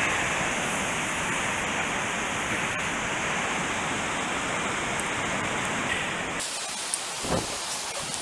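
A steady rushing hiss that drops off suddenly about six seconds in. A few soft knocks and rustles follow.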